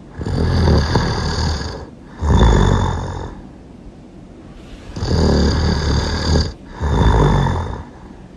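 A person snoring really loud. Two snore pairs, each a long snore followed by a shorter one, with a pause of a second or two between the pairs.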